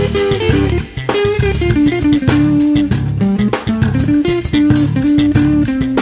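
Background music: an instrumental track with a guitar melody over bass guitar and a steady drum beat.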